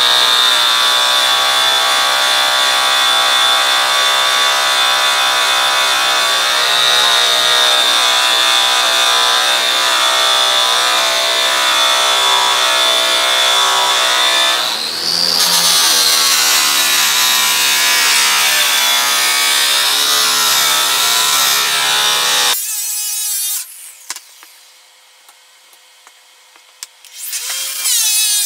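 Electric buffer spinning an orange/yellow airway buffing wheel loaded with cutting compound against an aluminum snowmobile tunnel, a steady high whine during the cutting step of polishing. It cuts off suddenly a little over twenty seconds in and starts running again near the end.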